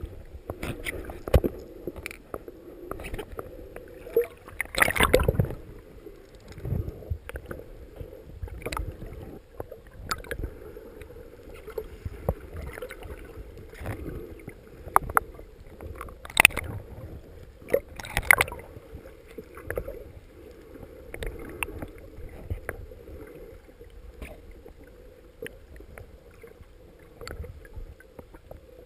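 Small boat being rowed: water sloshing and gurgling around the oars and hull, with irregular knocks from the oars, a few of them louder.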